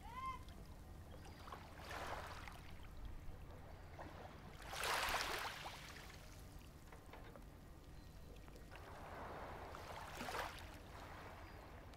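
Faint sea water washing in slow swells, the loudest about five seconds in, over a low steady hum.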